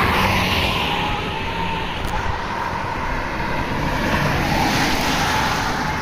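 Highway traffic: cars passing with steady tyre and engine noise, swelling as vehicles go by, once near the start and again about four to five seconds in.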